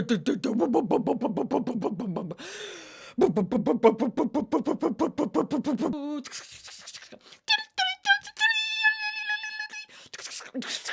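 Rapid, throaty, stuttering vocal sputter, the 'Sebulba cough': two runs of quick rasping pulses, about seven a second, each two to three seconds long. It is followed by a few short high tones and one held high tone near the end.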